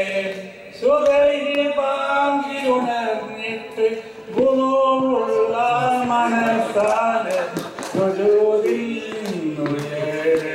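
Two men singing a Mappila devotional song without accompaniment, through microphones, in long held, wavering melodic phrases.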